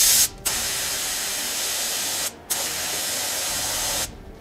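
Air hissing out of a car tyre valve as the tyre is deflated from about 2.8 bar toward a lower pressure. The hiss comes in steady spells broken by short pauses about every two seconds.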